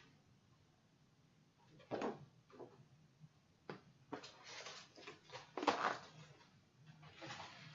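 Paper and plastic packaging rustling as it is handled, in short irregular bursts, the loudest about six seconds in.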